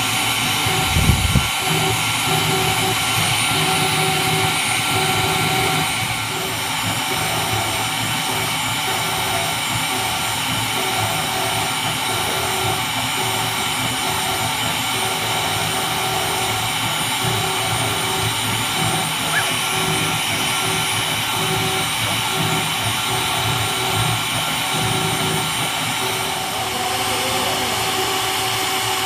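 High-speed spindle of an fbots fcarve PCB Master CNC engraver running steadily with a whine of several high tones while its engraving bit cuts into aluminium plate. A short low rumble about a second in.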